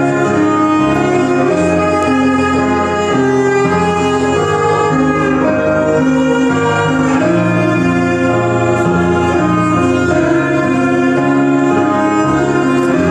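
Live cello and Nord Stage keyboard duet playing an instrumental passage: long bowed cello notes over keyboard chords that change every second or two.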